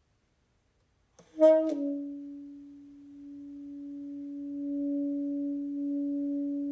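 Background music: one long held low note that enters about a second in, after a silent gap, with a brief bright attack and a gentle swell.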